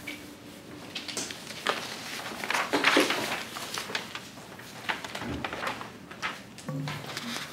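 Quiet exam-room noises: pencils scratching and paper rustling in short scattered bursts, with a louder rustle about three seconds in. A few soft musical notes come in near the end.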